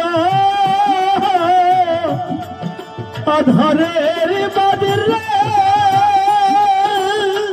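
Live Bangladeshi Baul folk music: a long-held, wavering melody line over a steady hand-drum beat, the melody breaking off briefly about two and a half seconds in.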